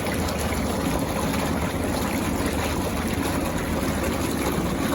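Boat engine running steadily while being flushed with fresh water to wash out the salt, with water trickling and splashing around it.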